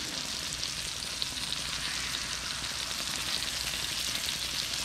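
Chicken breasts frying in a pan: a steady sizzling hiss with fine crackling.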